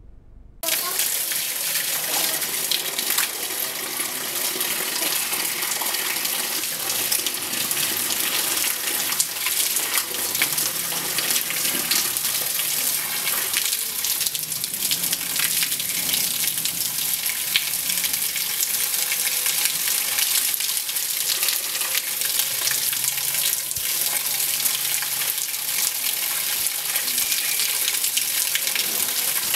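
Water from a garden hose spraying and splashing against the fan and condenser fins of an air-conditioner outdoor unit as the unit is washed free of dust. It is a steady hiss that starts suddenly about half a second in.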